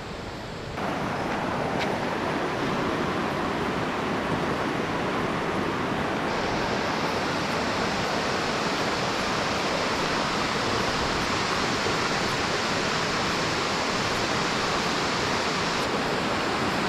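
Shallow rocky river flowing, a steady rush of water over stones. It starts about a second in, after a short quieter stretch.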